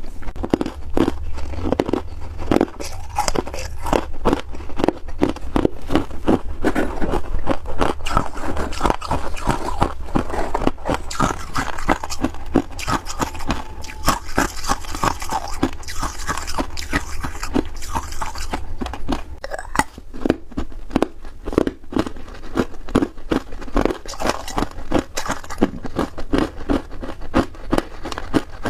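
Close-up crunching and chewing of freezer frost: a dense run of crisp crunches as the soft ice is bitten and chewed, with no break.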